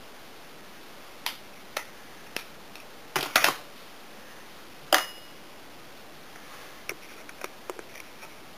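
Scattered sharp clicks and taps over a steady low hiss. The loudest are a quick cluster about three seconds in and a single click about five seconds in, with a few fainter ticks near the end.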